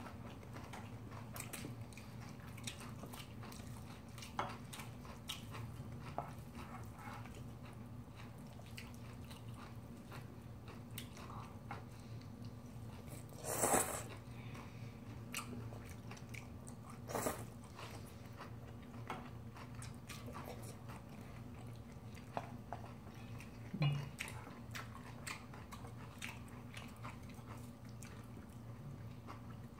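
Close-up eating sounds: chewing and biting of bibimbap, with small mouth clicks throughout. A few louder short knocks of utensils against the bowls, about three, stand out.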